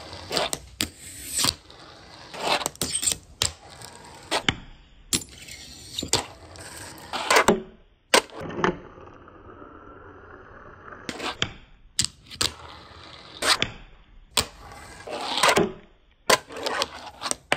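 Fingerboard tricks: sharp clacks as the small deck pops off its tail and lands, with its tiny wheels rolling and scraping in between. The clacks come in an irregular string, with a longer stretch of rolling about eight seconds in.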